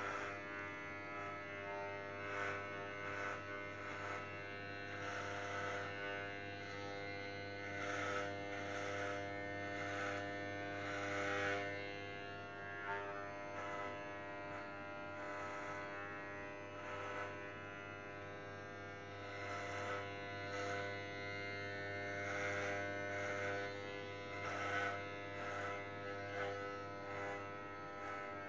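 Electric hair clippers running with a steady buzz during a head shave, the sound changing irregularly as the blades pass through hair.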